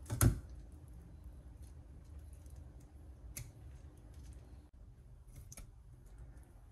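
Quiet knife work on a raw snapper fillet on a wooden cutting board: a thump just after the start, then a few faint ticks of the knife tip against the fish and board over a low steady hum.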